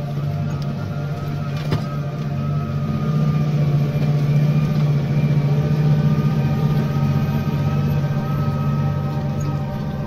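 New Holland T7.235 tractor's diesel engine running steadily under load, pulling a five-furrow Lemken plough through hard ground. The engine hum swells toward the middle and eases off near the end.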